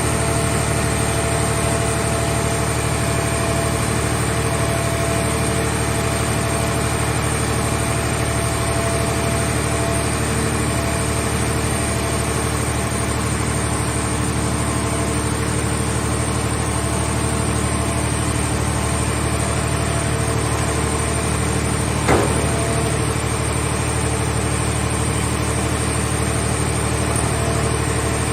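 A scrap car baler's power unit running steadily with an even mechanical hum. About 22 seconds in there is a single sharp knock.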